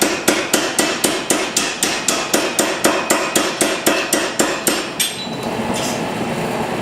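Power hammer striking steel at a steady, fast rhythm of about four blows a second, working the texture into the metal through the spring die. The blows stop about five seconds in, leaving a steady rushing noise.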